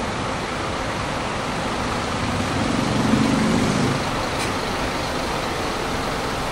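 Steady city traffic noise, with a heavy motor vehicle passing close by about two to four seconds in, the loudest moment.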